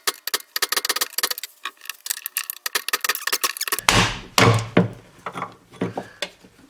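Fast, light metallic clicking and rattling, then from about four seconds in several heavier hammer blows on a punch, driving out a worn door hinge pin.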